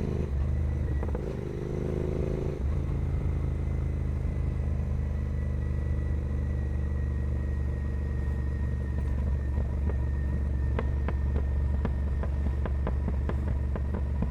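Royal Enfield Continental GT 650's parallel-twin engine, breathing through a carbon 2-into-1 racing exhaust, running steadily at low revs with a deep, even rumble. A run of sharp clicks comes in from about ten seconds in.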